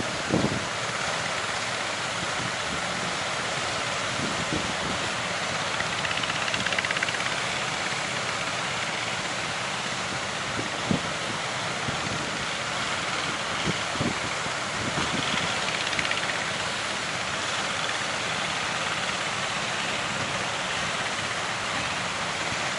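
Strong wind rushing steadily over the microphone, with a few gusts buffeting it in short low thumps.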